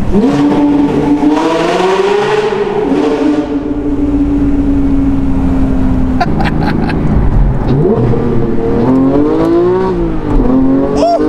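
Porsche GT3's 4.0-litre flat-six engine through a Brooke Race Exhaust system, revving under acceleration. The note climbs at the start, holds steady for a few seconds, then rises and falls several times as the driver accelerates and lifts.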